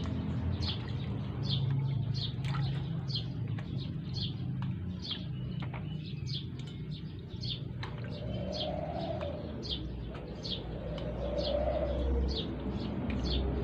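Birds chirping, short high calls about twice a second, with a lower cooing call twice in the second half, over a steady low hum.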